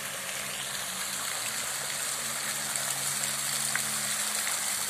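Water of a tiered fountain falling from its upper bowl into the pool below, a steady splashing that grows a little louder.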